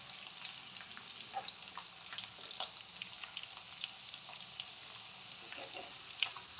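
Onion and green capsicum pieces frying in hot oil in a kadhai: a faint, steady sizzle with many small crackles and a few louder clicks while a metal spoon stirs and lifts them.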